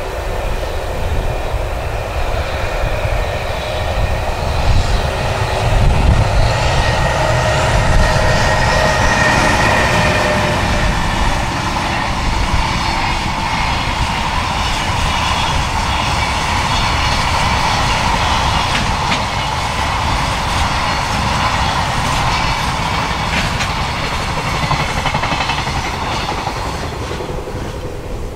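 JR Freight EH500 electric locomotive passing at speed, followed by a long container freight train running by on the rails. It is loudest as the locomotive goes by a few seconds in, then holds steady through the wagons and eases a little near the end.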